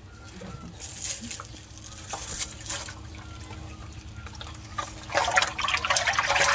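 Water splashing and sloshing with irregular splats, growing much louder and busier about five seconds in.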